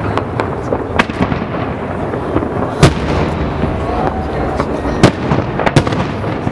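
Aerial firework shells bursting in a display: sharp booms about one, three and five seconds in, with two more close together near the end, over a continuous rumble and crackle of further bursts.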